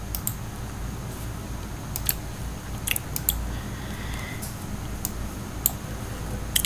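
Scattered sharp clicks of a computer mouse and keyboard, about seven of them spread over several seconds, over a low steady background hum.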